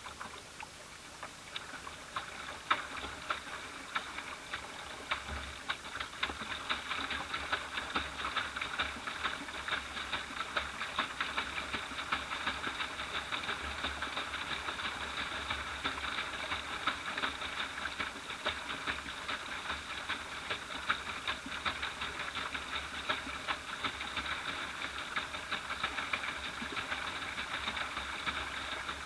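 Rapid, continuous patter of water splashing against the bow of a small boat under way, building up over the first couple of seconds, heard muffled through an action camera's waterproof housing.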